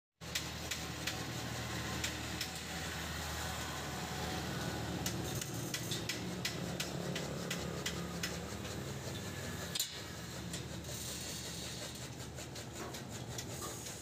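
A steady low machine hum with scattered light clicks and ticks; a sharper click comes about ten seconds in, after which the hum fades.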